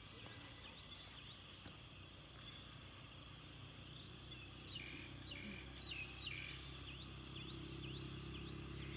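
Outdoor rural ambience: a steady high-pitched insect drone, with birds calling in short, quick, repeated chirps and a cluster of louder calls around the middle.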